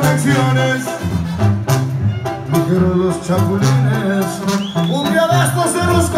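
Live banda music from a Mexican brass band: a tuba plays a stepping bass line under trombones and trumpets.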